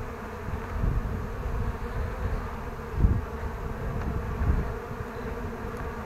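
Swarm of honeybees buzzing around an opened hive, a steady hum, over low rumbling from handling or wind on the microphone, with a dull bump about three seconds in.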